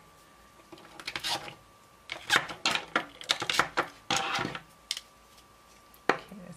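Small gel polish bottles clacking against each other and tapping down into a cardboard holder as they are handled and set in place, a quick run of light clicks and knocks with a last one near the end.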